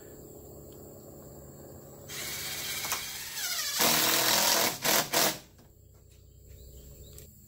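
Cordless drill driving a screw to fasten the enclosure track to the post: it runs for about a second and a half, pauses briefly, then runs louder and ends with two short bursts as the screw seats.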